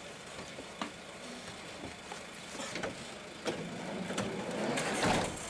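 Knocks and clatter of people climbing into a police van, ending about five seconds in with a heavy noise as the van's sliding side door is slammed shut.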